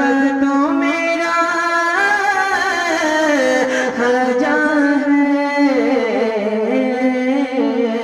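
A man singing a naat through a PA microphone in long held notes that bend and glide from pitch to pitch, with no breaks between them.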